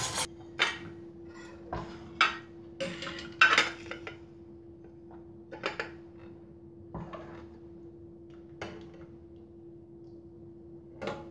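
A long metal ladle clinking and scraping against a stainless steel cooking pot and a white ceramic serving bowl as soup is ladled out, in scattered knocks with the loudest a few seconds in and near the end. A faint steady hum runs underneath.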